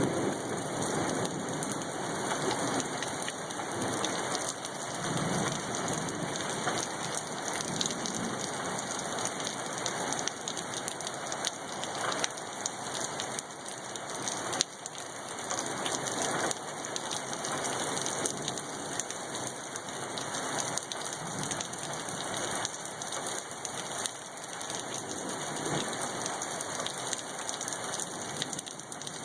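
Hail and rain pelting down in a wind storm: a dense, steady patter of small impacts on surfaces, with gusts swelling and easing underneath. One sharper, louder crack comes about halfway through.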